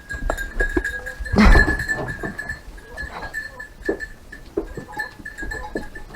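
Goats bleating, the loudest call about one and a half seconds in, with scattered knocks and rustles. A steady high tone runs underneath.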